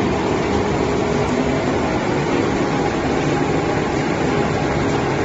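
Industrial sawdust dryer line running: a steady machinery drone and rush of air with a faint held hum.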